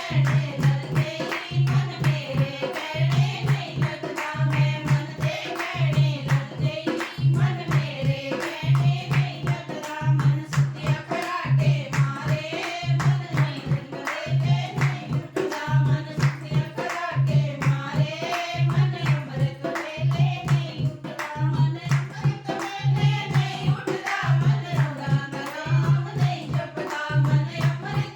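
Punjabi devotional bhajan sung to a wavering melody over rhythmic hand-clapping and drum strokes, with a low note pulsing about once a second.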